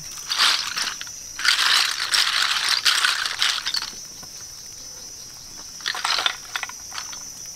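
Shells rattling and clattering in a woven bamboo basket as it is handled and shaken, in two bursts over the first four seconds, then a shorter clatter about six seconds in as a clay lid is set over the basket.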